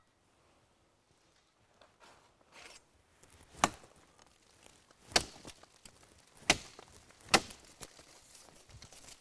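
A knife chopping into a rata vine: four sharp blows over about four seconds, with quieter scraping and rustling before the first.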